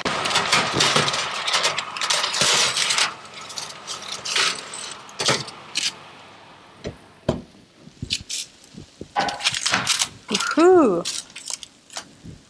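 A metal baking tray lined with foil scraping and clattering on a wire oven rack as it is pulled out of the oven, with a string of sharp clicks and knocks, busiest in the first half, then a few scattered knocks as it is set down.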